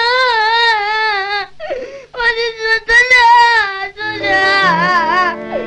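A boy's voice crying in long, wavering wails, broken by sharp gasping breaths. Background music comes in about four seconds in.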